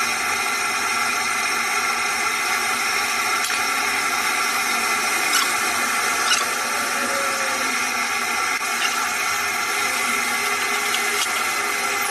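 A small motor running steadily with a high-pitched whine, with a few faint clicks.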